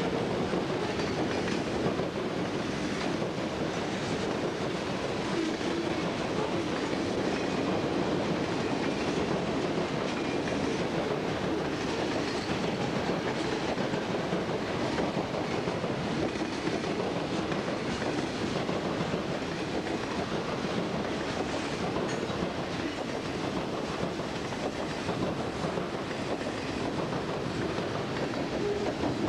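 Freight train's boxcars and lumber flatcars rolling steadily past, a continuous rumble of steel wheels on rail with light clicking over the rail joints.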